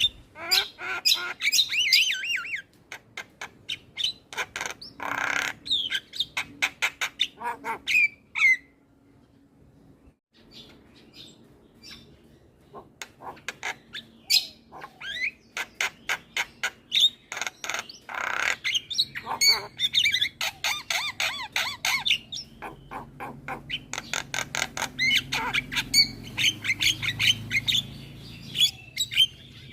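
Javan myna chattering without pause: fast runs of clicking notes mixed with harsh squawks and short whistled glides. There is a brief lull about nine seconds in, then the chatter picks up again.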